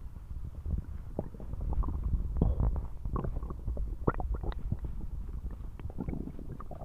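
Human stomach growling loudly: a low continuous rumble with many quick, irregular gurgles and squelches.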